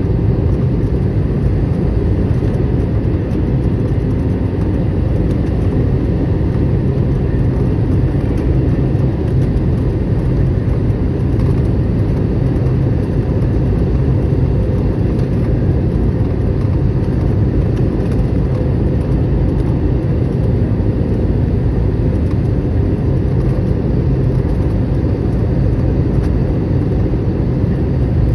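Steady airliner cabin noise on approach: the low, even drone of the jet engines and airflow, with a faint steady whine above it.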